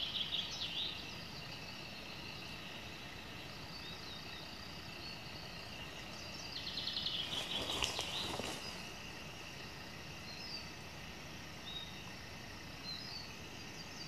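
Small songbirds singing in a forest: a rapid high trill at the start and another about seven seconds in, with a few short scattered chirps later, over a steady faint hiss of forest background. A brief louder rustle comes around eight seconds in.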